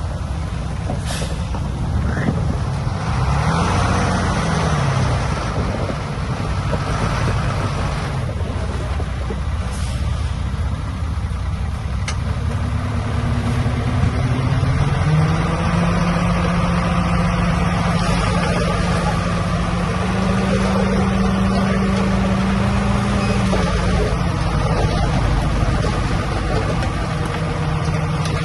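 Heavy diesel earthmoving machinery running under load, its engine note rising and falling a few seconds in, then held higher and steady from about halfway through.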